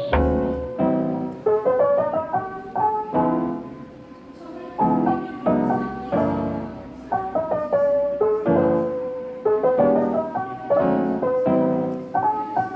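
Background music: a soft lo-fi piano track playing chords with a light melody.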